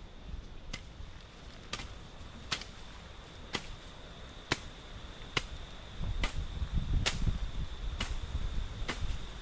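Sharp chopping strokes struck by hand at a steady pace of about one a second, the sound of bush being cut back.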